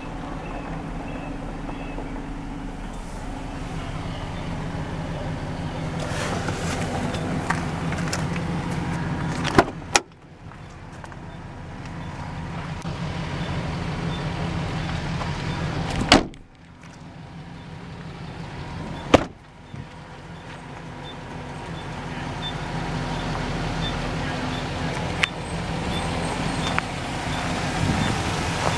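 A 2012 GMC Sierra 1500 pickup idling with a steady low hum. Sharp thumps of its doors being shut come about a third of the way in and twice more past the middle.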